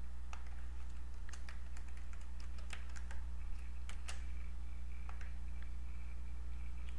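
Computer keyboard keys clicking in an irregular run as a username and password are typed in, over a steady low electrical hum.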